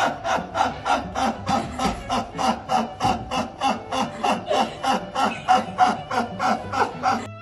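A man's wheezing, see-sawing laughter: short gasping pulses, about four a second, with no pause for breath, cut off abruptly near the end.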